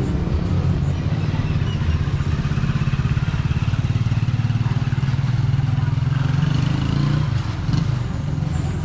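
A vehicle engine running close by with a steady low throb, which drops away about seven seconds in.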